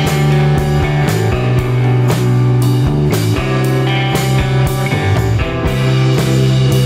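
Background rock music with electric guitar and drums and a steady beat.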